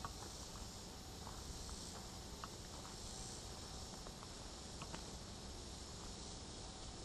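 A steady, high-pitched chorus of summer insects in woodland, with a few faint scattered clicks, likely footsteps on the dirt trail.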